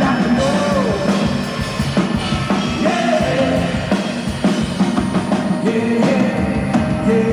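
Live band music with a drum kit keeping time under a gliding melody line, in a passage with no sung words.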